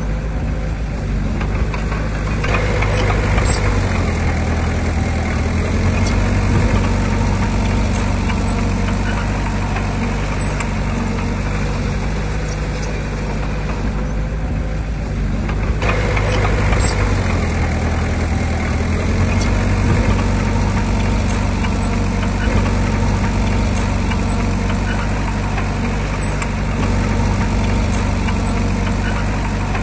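Diesel engine of heavy earthmoving machinery running steadily, its note shifting a little as the load changes.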